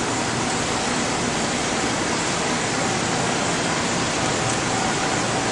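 Steady, even rushing noise of equipment fans and ventilation, with a few faint steady hums mixed in.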